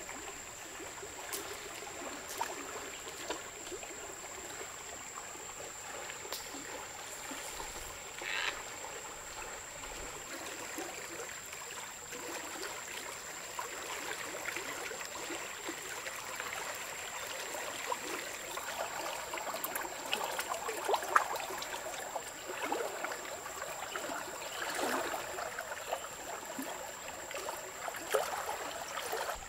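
River water running over rocks, a steady rushing and trickling, with scattered small splashes and knocks, more of them in the second half.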